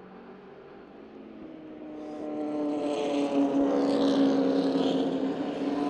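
Stock car V8 racing engine coming closer and passing near, growing louder about two seconds in and staying loud at full throttle.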